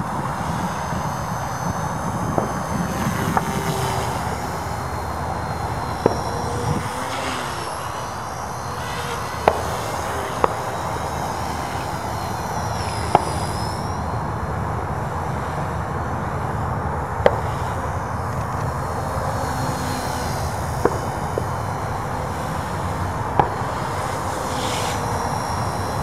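RC helicopter flying overhead: a steady noisy drone with a faint high whine that wavers up and down as the rotor speed changes. Scattered sharp clicks pop up irregularly through it.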